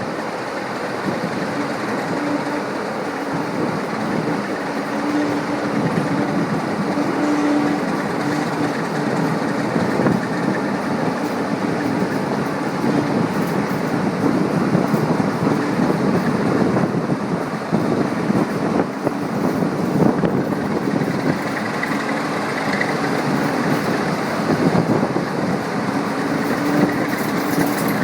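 A heritage railway train running, with a steady mechanical din and a faint engine tone that comes and goes.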